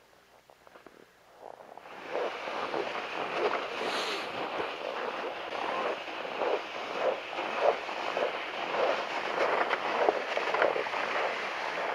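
Footsteps crunching on packed snow, about two a second, over the steady scraping hiss of a plastic sled dragged across the snow on its rope, starting about two seconds in.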